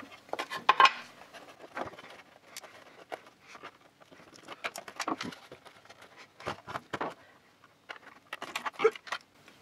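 Screwdriver prying apart the plastic housing of an LED emergency light: scattered sharp clicks, taps and scrapes of metal tool on plastic, in several short clusters, as small plastic pieces break off.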